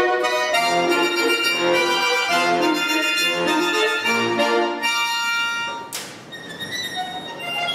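Bayan (Russian chromatic button accordion) played solo: a passage of many held notes and chords changing in quick succession. About six seconds in comes a sharp accented chord, after which the playing drops to a softer passage.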